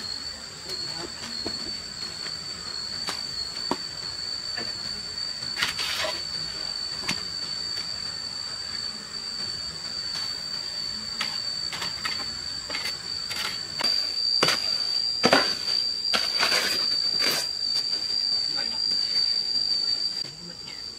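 A steady high-pitched insect drone that wavers slightly, with scattered sharp clicks and knocks, a few louder ones about two-thirds of the way through.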